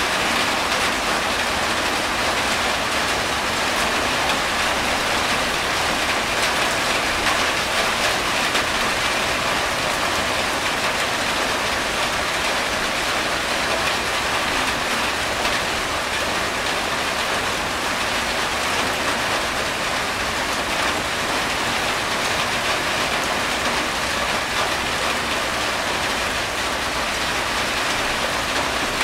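Steady rain falling on a corrugated tin roof: an even, unbroken hiss of many drops, with water streaming off the roof edge.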